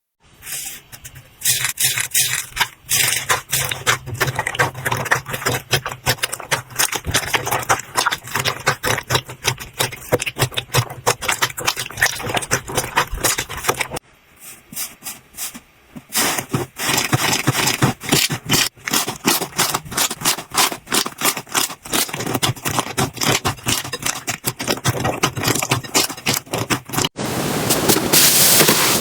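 Slime being squeezed and poked by hand: a dense run of crackling clicks and pops, with a short lull about halfway and a denser crackle near the end.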